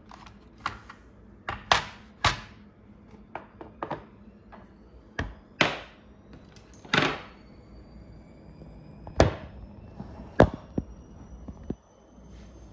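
Irregular knocks and thumps, a dozen or more spaced unevenly, some sharp and a few trailing off in a short rustle; the loudest come near the start and about two-thirds of the way through.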